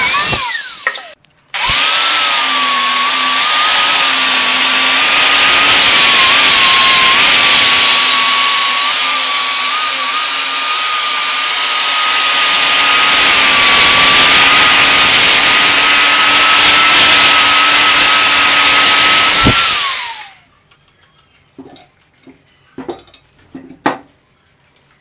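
Angle grinder with a flap disc grinding the steel exhaust silencer of a Keeway RKS motorcycle: the motor runs at a steady high whine over loud grinding noise for about eighteen seconds, then winds down with a falling pitch. Just before that the grinder briefly spins down, and in the last few seconds there are only a few light clicks and knocks.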